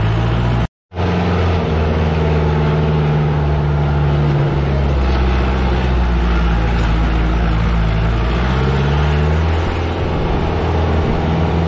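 Jeep engine running under load as the vehicle climbs a steep dirt track, its low note stepping up and down in pitch a few times. The sound cuts out completely for a split second just under a second in.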